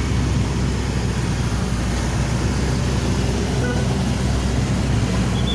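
Excavator diesel engine running steadily.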